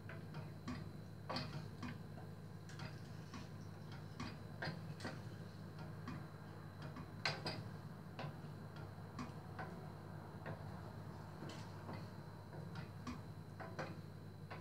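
Wooden spoon stirring soup in a stainless steel pot, giving faint, irregular light knocks against the pot about two or three times a second, over a steady low hum.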